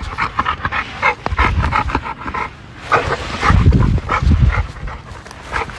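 American Bully dogs panting fast and hard, about four breaths a second. About three seconds in, a louder low rumble covers the panting for a second or two.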